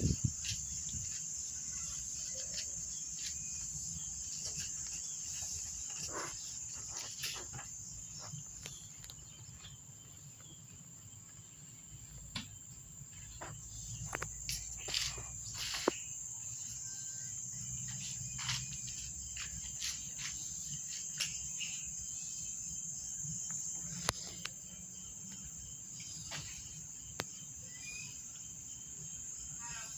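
Steady high-pitched insect chirring, with scattered light clicks and taps over it.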